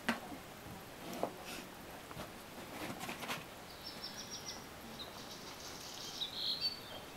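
Kittens' claws scratching and tapping against a poster board and wooden deck in a few short bursts, with a bird chirping in a quick high series over the second half.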